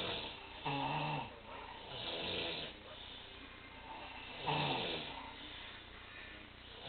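A person snoring, a loud snore about every two seconds, some with a low buzzing rattle and others more breathy and hissing.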